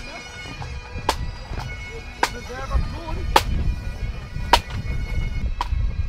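Pipe band's Highland bagpipes playing, their chanters and drones sounding steadily over a sharp drum stroke that falls about once a second.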